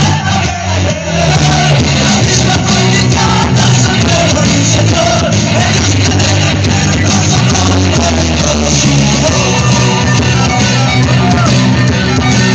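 Loud dance music with a heavy, steady bass line, played through a sonidero sound system.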